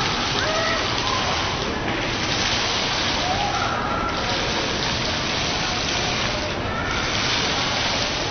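Digital water curtain: streams of water dropping from an overhead nozzle rig and splashing below, a steady rushing hiss. It thins briefly about every two seconds, between the falling patterns.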